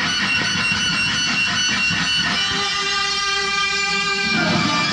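Background music: a guitar-led instrumental.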